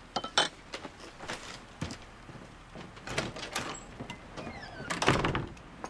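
Spoons clinking and scraping against soup bowls and cups: a scatter of short, irregular clicks, with a louder scrape about five seconds in.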